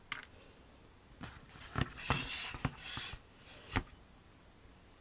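Handling noise as the felted cat piece on its board is turned on a plastic cutting mat: a few light knocks and taps, with a scraping rub of the board sliding across the mat about two seconds in.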